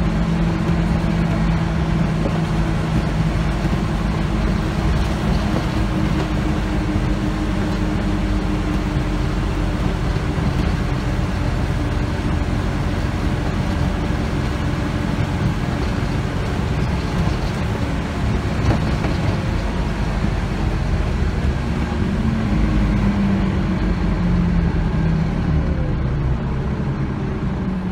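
Interior noise of a Scania OmniCity bus under way: a steady engine drone over low road and tyre rumble, the engine's note shifting in pitch now and then.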